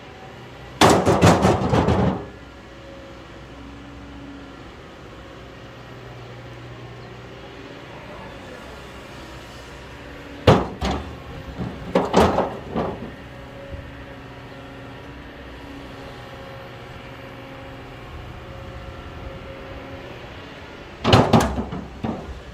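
Kobelco excavator's diesel engine running steadily, broken three times by loud bursts of rapid clattering and scraping as the steel bucket digs into broken rock: about a second in, in the middle, and near the end.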